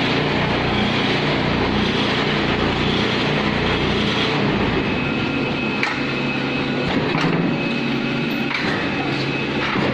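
Brick-making machine running with a steady mechanical drone, with a few sharp clanks in the second half.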